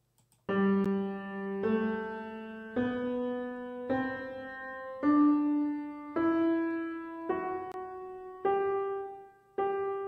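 Piano playing the G major scale one note at a time, about one note a second, rising step by step through an octave and starting back down near the end.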